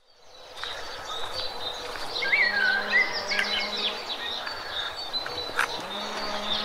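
Songbirds chirping and calling in quick, gliding phrases over a steady high insect drone, fading in at the start.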